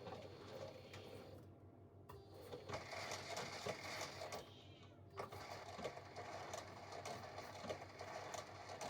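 Drum of a Panasonic VX-series drum washing machine turning with a grating, scraping rub, stopping briefly twice. The drum is rubbing against the spin-tub cover, which has worn through to a hole.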